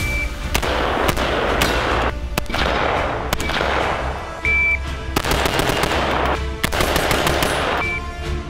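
Rifle shots from M16A1 and AR-15-type 5.56 mm rifles in quick strings, each crack trailing off in an echo, over background music with a steady bass. A short high beep sounds about four and a half seconds in.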